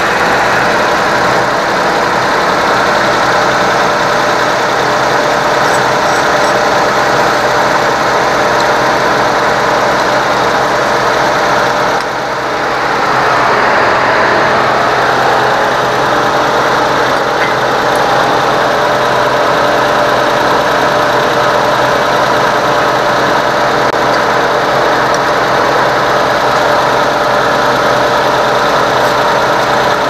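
Suzuki Jimny JA11's 660 cc three-cylinder engine idling steadily with the air-conditioning running for a refrigerant recharge, with a short dip in level about twelve seconds in.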